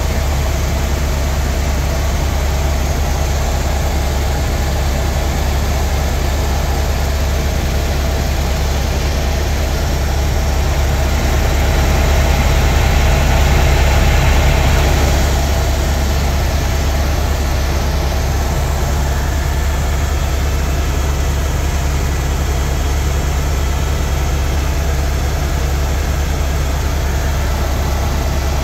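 Helicopter in flight: a steady, loud drone of rotor and turbine with a strong low throb, swelling a little around the middle.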